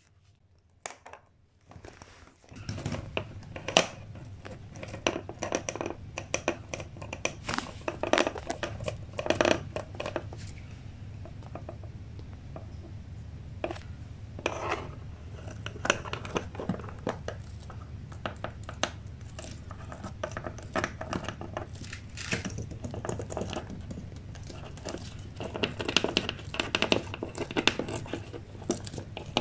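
A sugar glider scrabbling and scratching on a wooden floor as it grapples with and bites a cat-teaser toy dragged along the boards, a run of irregular scratches, scrapes and clicks over a low steady rumble that starts about two seconds in.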